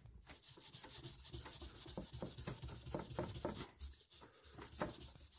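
Fine steel wool rubbed by hand over a dirt-caked inlaid wooden panel on a table leg, in short, faint scrubbing strokes a few times a second, wearing away grime and old varnish.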